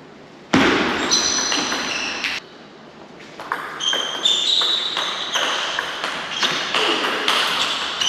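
Table tennis rally: the ball knocks back and forth off the bats and the table in quick, irregular hits, in two spells of play with a short break between them. High squeaks sound among the hits.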